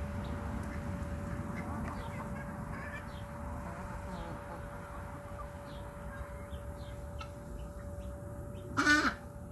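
Chickens in a backyard run, with one short, loud squawk from a hen near the end, over steady low outdoor background noise and a faint steady hum.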